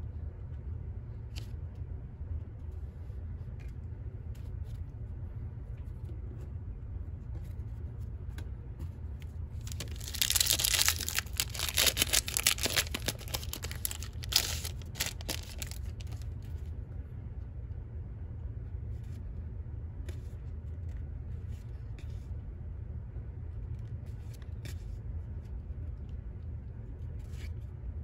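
A trading-card pack wrapper being torn open and crinkled, starting about ten seconds in and lasting about six seconds. Faint taps of cards being handled come before and after it.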